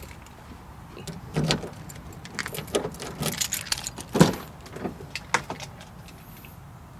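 Light clicks and rattles, then a sharp click about four seconds in, the loudest sound, as the Subaru Forester's driver's door handle is pulled and the door unlatches and swings open.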